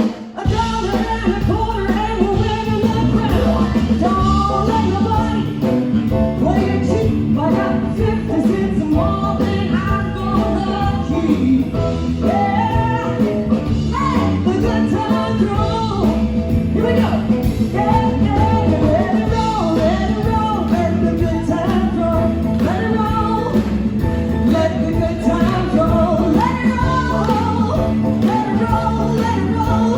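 Live band music: an up-tempo blues and rock-and-roll song with guitar and a steady low bass line, with singing heard along with it.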